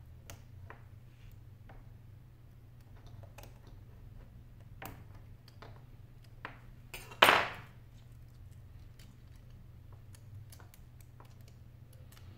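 Small clicks and taps of metal tweezers and small phone parts being handled and fitted into a Sony Xperia Z3's frame, with one much louder knock about seven seconds in.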